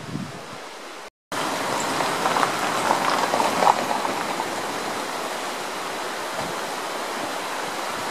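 Steady rush of flowing water, starting suddenly after a short dropout about a second in. Before it comes a quieter outdoor hiss with a low thud at the very start.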